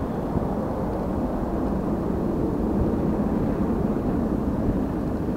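Distant twin-engine jet airliner on the runway: a steady, even low rumble of its engines.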